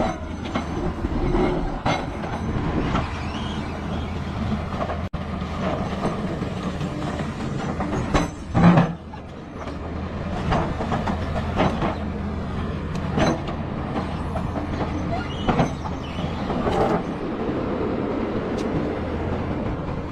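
Caterpillar crawler bulldozer working: a steady diesel engine drone with the clanking of steel tracks and irregular knocks. A louder bang comes about eight and a half seconds in.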